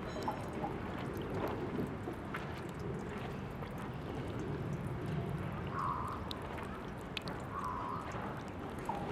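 Tap water running steadily from the faucet of a park drinking fountain, splashing and trickling, with two short gurgles in the second half.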